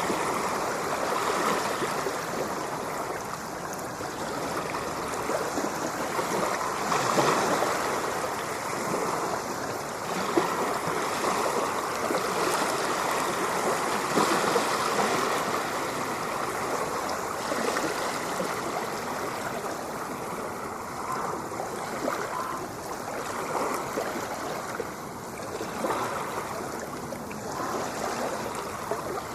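Ocean waves washing onto a shore: a continuous rush of water that swells and eases every few seconds.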